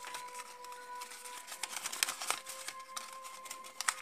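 A crumpled piece of paper crinkling and crackling in irregular bursts as fingers work to unfold it, over faint background music with long held notes.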